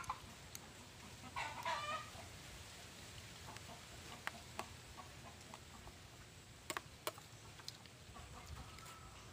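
A chicken clucks about a second and a half in, one short call of several quick pulses. A few sharp clinks of a spoon on a ceramic plate come later, two close together about seven seconds in.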